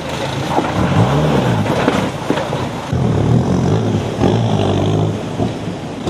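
Off-road 4x4 engine revving, its pitch rising and falling several times, with knocks and a low rumble.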